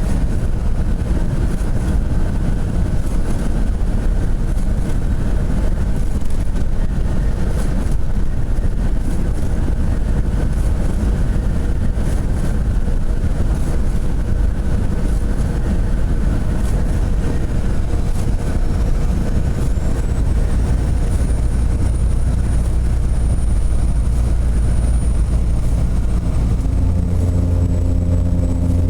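Semi truck driving: a steady low engine drone mixed with road noise. Partway through, a faint high whine rises and then holds. Near the end, the engine's hum turns more even and tonal.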